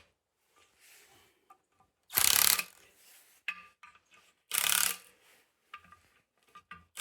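Ratchet wrench clicking in three short runs, a couple of seconds apart, on the clutch pressure plate bolts, with faint small clicks and knocks of metal between the runs.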